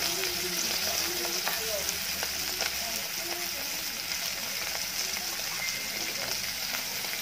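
Dried salted fish (tuyo) sizzling and crackling as they fry in shallow oil in an aluminium pot, a steady hiss dotted with small pops. Metal tongs click against the fish and pot now and then as the fish are turned.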